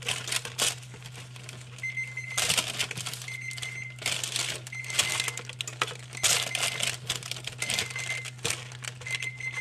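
Parchment paper and the foil under it crinkling and rustling in irregular bursts as a gloved hand tosses sauce-coated cauliflower florets. A short, high, steady beep repeats about every one and a half seconds, over a low steady hum.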